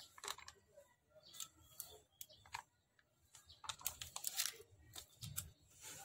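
Faint, irregular crinkles and clicks of a sleeping bag's synthetic outer fabric being handled and pressed by hand, with water just poured onto it. The crackling is busiest about two-thirds of the way through.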